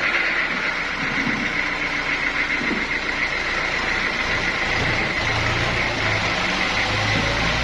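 Sawmill machinery running steadily: an engine drone with a constant high whine over it.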